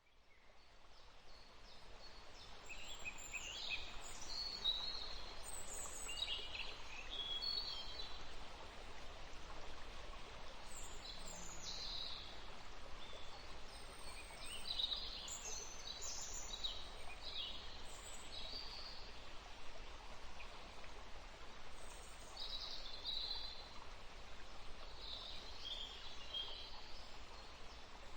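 Several birds chirping and trilling in short, repeated calls over a steady background hiss. The sound fades in from silence over the first few seconds.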